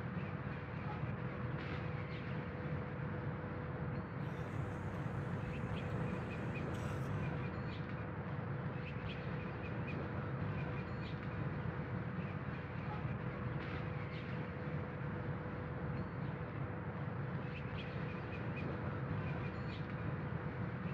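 Steady outdoor background noise: a low rumble with a constant mid-pitched hum and faint, scattered bird chirps. A faint high hiss comes in about four seconds in and lasts about three seconds.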